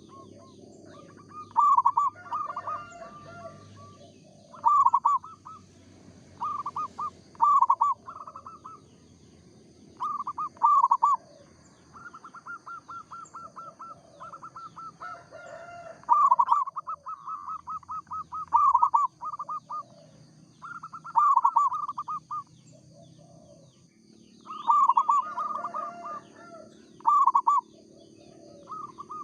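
Zebra dove (perkutut) cooing over and over: short phrases of pulsing coos at one pitch, a few opening with a fast stuttering run of short notes, with brief pauses between phrases.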